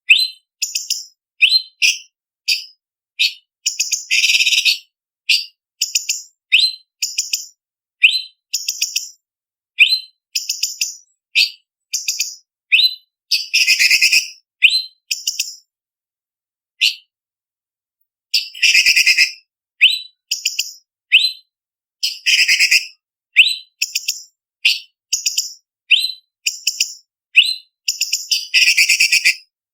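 Cucak cungkok leafbird singing a rapid string of short, sharp, high whistled notes, broken every few seconds by longer harsh, rattling chatters, with a brief pause about halfway through.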